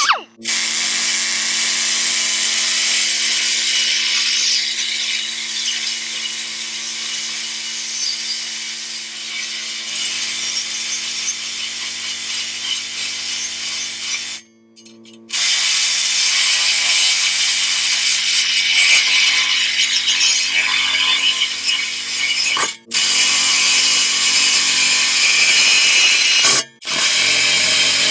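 Cut-off wheel grinding through a steel exhaust pipe, running steadily with a high, gritty hiss over a steady motor hum. It stops briefly a few times, once for about a second midway, before cutting again.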